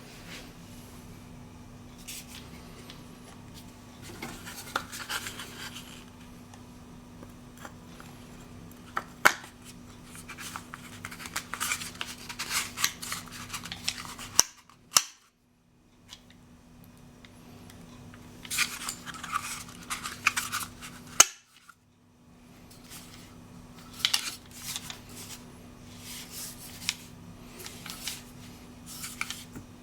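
Unboxing handling: irregular rustling and crinkling of packaging, with occasional sharp clicks and knocks.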